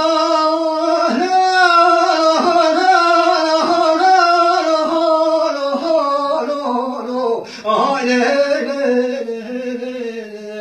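A man singing a Kurdish folk song solo and unaccompanied, drawing out long, ornamented notes on a vowel, with a short break for breath about seven and a half seconds in.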